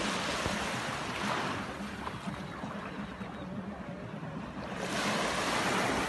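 Small sea waves breaking and washing up a sandy beach, the surf swelling in surges, with a louder wash about five seconds in.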